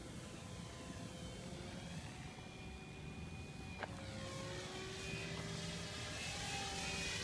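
MSH Protos radio-controlled helicopter's motor and rotor whining as it climbs away in flight, the pitch sliding up and down as it moves. A single sharp click just before four seconds in.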